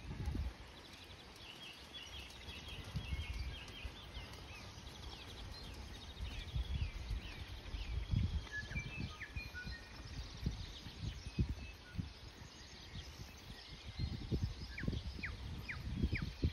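A horse's hooves thudding dully on arena sand at a trot, with birds singing in the background: a trill early on and short whistled notes later.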